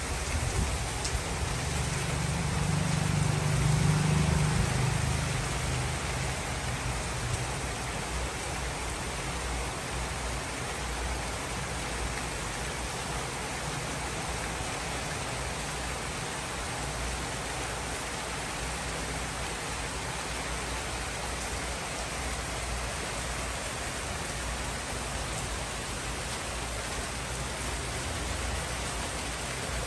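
Steady rain falling on trees and roofs, an even hiss. A low rumble swells and fades in the first few seconds.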